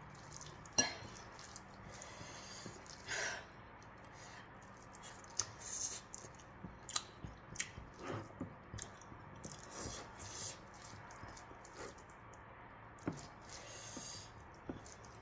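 Close-up eating sounds: chewing and mouth smacks, and fingers squishing and mixing spiced rice with broccoli and potato in a ceramic bowl. Scattered small clicks run throughout, with a sharper click about a second in.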